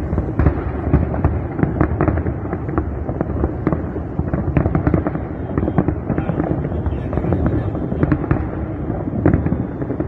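Fireworks display: many aerial shells bursting in a dense barrage, rapid overlapping bangs several a second over a continuous low rumble.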